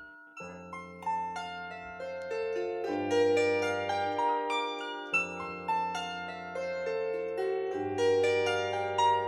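Bandura played solo: a flowing run of plucked notes ringing over deep bass strings, the bass notes changing every second or two. A brief gap at the start, then the playing resumes.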